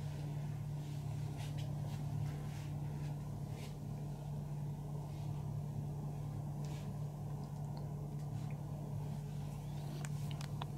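Steady low hum with faint, scattered rubbing and light taps of hands working on skin during a massage.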